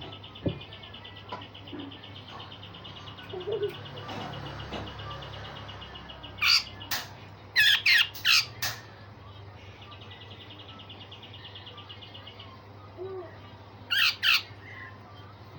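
Cucak jenggot (grey-cheeked bulbul) calling: a burst of loud, sharp, sweeping notes in the middle and two more near the end. A steady buzzing rattle runs underneath, stopping when the first calls start and returning for a few seconds after them.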